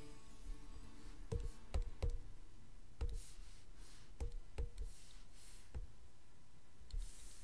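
About nine light knocks at irregular intervals, each a short tap with a low thump and a brief ring, over faint background music.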